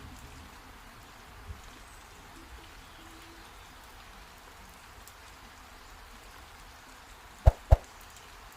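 Steady rain falling, an even patter. Near the end there are two loud knocks in quick succession.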